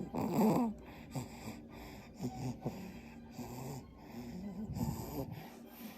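A roughly 39-day-old baby snoring in sleep: noisy, snorting breaths. The loudest comes right at the start, then softer, irregular snuffles follow about every half second to second.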